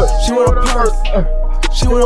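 Hip-hop track playing: rapped vocals over a beat with deep sliding bass and sharp drum hits.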